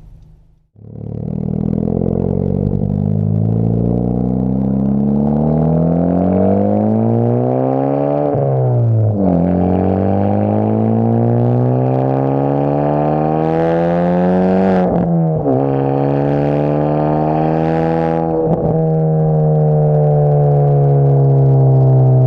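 Honda Civic Type R FK8's turbocharged four-cylinder exhaust through a Tomei full-titanium muffler, accelerating through the gears: the pitch climbs steadily, drops sharply at two upshifts, then settles into a steady cruising drone.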